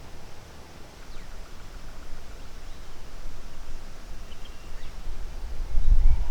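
Low rumble of wind buffeting the microphone outdoors, growing louder toward the end, with a few faint high chirps.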